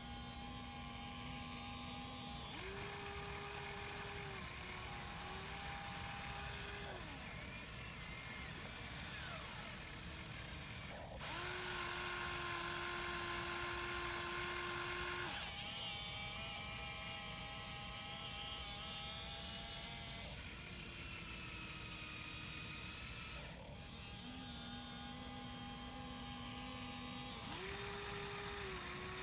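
Huina RC excavator's small electric motors and gears whining steadily. The pitch jumps to a new level every few seconds as different movements start and stop.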